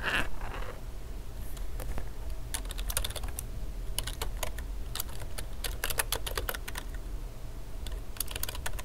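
Typing on a computer keyboard: irregular runs of keystroke clicks with short pauses between them, over a steady low hum.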